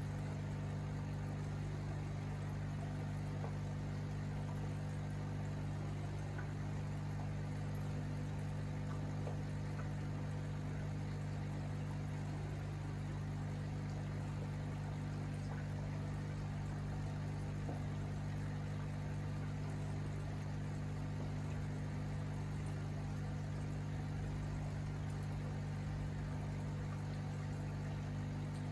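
Aquarium pump humming steadily, with faint bubbling water.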